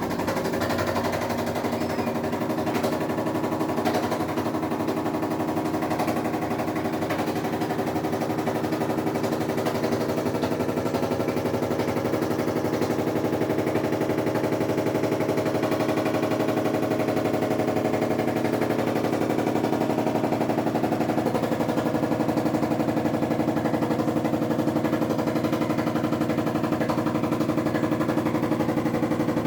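Samsung washing machine draining with a huge noise: a loud, fast, continuous rattling buzz over a steady hum. It is the noise problem of a new machine.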